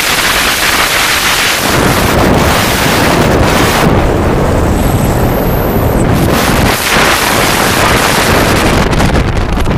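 Freefall airflow rushing past and buffeting the camera microphone in a tandem skydive, a loud steady rush. About four seconds in, as the parachute deploys, the hiss thins briefly and a faint high whistle appears, then the rush returns.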